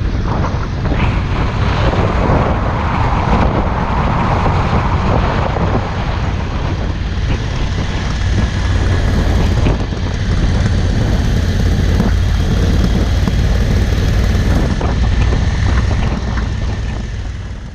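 Motorcycle on the move, its engine running under heavy wind rush across the helmet- or bike-mounted action camera's microphone; the sound fades out near the end.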